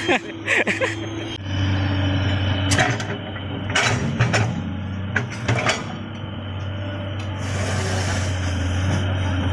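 Komatsu hydraulic excavator's diesel engine running steadily, with a few sharp clanks between about three and six seconds in.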